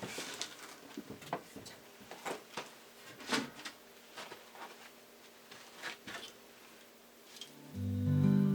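Scattered soft clicks and taps at irregular intervals, then strummed acoustic guitar music comes in near the end.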